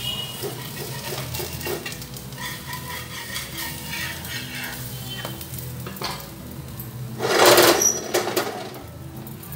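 Tapioca adai sizzling on a black iron pan while a metal spatula scrapes and taps against the pan. About seven seconds in, there is a loud scrape lasting about a second as the pan is shifted on the burner.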